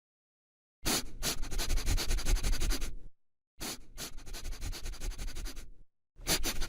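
Scratching and rubbing noise, a dense crackle with a low rumble, in three bursts of about two seconds each, each one starting and stopping abruptly.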